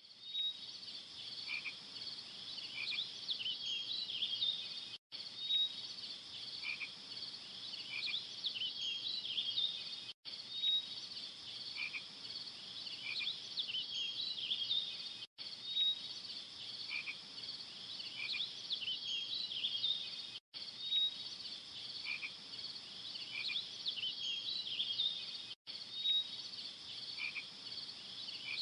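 A chorus of calling frogs and insects, chirping and trilling high and steady. It is a short recording of about five seconds played on a loop, with a brief drop to silence between repeats.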